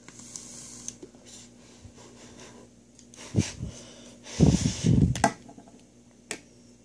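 A person vaping and breathing: a soft hissing exhale at the start, then two bouts of heavy breathing, the louder one about four and a half seconds in, with a couple of light clicks.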